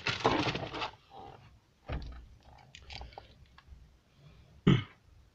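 Hands working the wiring harness and plastic connectors behind a car stereo head unit: rustling and scraping, a dull thump about two seconds in, a few small clicks, and a sharper, louder noise near the end.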